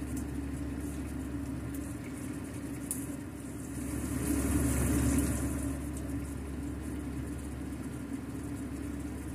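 Steady low machine hum with a held tone, like a motor or fan running, swelling briefly with a hiss about halfway through.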